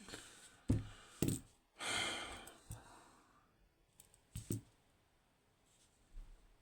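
A few sharp knocks and clicks from a small metal lock and tool being handled, with a long breathy sigh about two seconds in.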